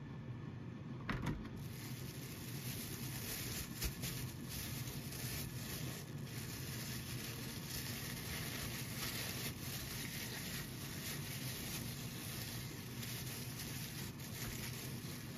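Thin plastic bag crinkling and rustling as hands knead raw chicken drumsticks in a soy-sauce marinade inside it, with a knock about a second in and another a few seconds later.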